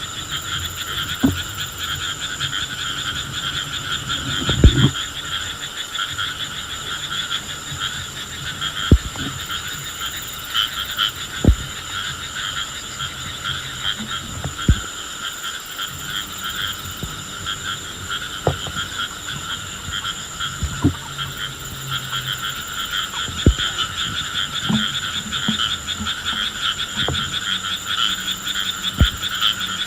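Frogs calling in a continuous, finely pulsing chorus, broken by a handful of short sharp clicks or knocks.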